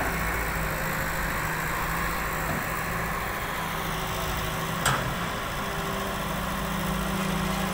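Diesel engine of a John Deere 595D wheeled excavator running steadily with a low hum while the machine swings and digs. There is a single sharp knock about five seconds in.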